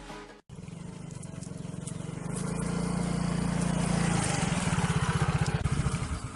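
An engine running steadily with a fast, even beat, growing louder over the first few seconds.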